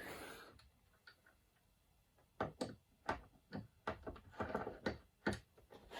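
Light, irregular clicks and taps of small metal parts of a watchmaker's lathe being handled, a quick run of them over about three seconds starting a little past two seconds in.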